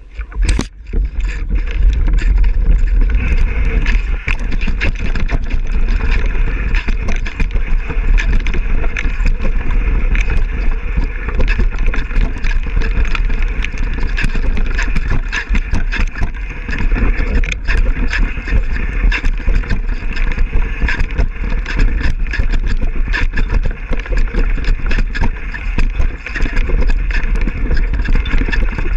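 Downhill mountain bike ridden fast over rough trail, heard from a GoPro on the bike or rider: a constant low wind rumble on the microphone with dense rattling and clattering of the bike over the ground.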